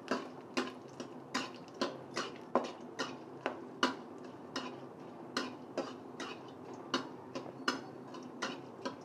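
Metal spatula clicking and scraping against a kadai in steady strokes, about two to three a second, while it stirs whole spices frying in a little oil.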